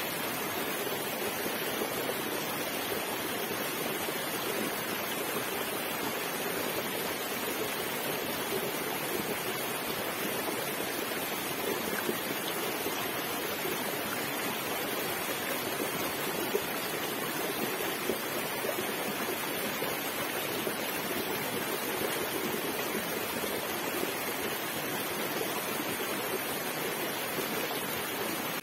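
Small rocky stream rushing and splashing steadily over stones in a cascade.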